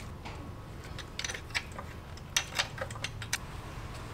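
Scattered sharp metallic clicks and clinks of a hand wrench working a bolt on a motorcycle engine, most of them after the first second, over a steady low hum.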